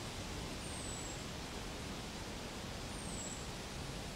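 Steady outdoor background hiss, with a short, very high whistle that falls in pitch, heard twice about two seconds apart.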